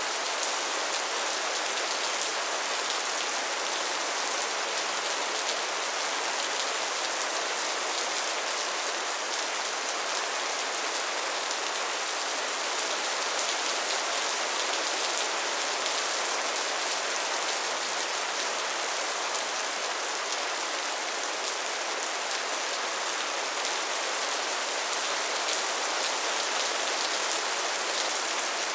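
Soft, steady rain falling, an even hiss with fine pattering drops.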